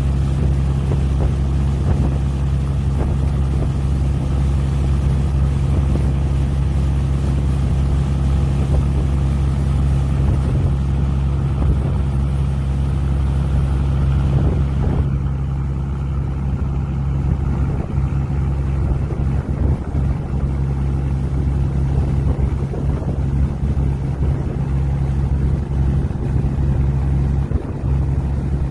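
Fishing boat's engine running steadily at a constant speed, a deep even drone heard from on board, with a hiss of water and air that fades about halfway through.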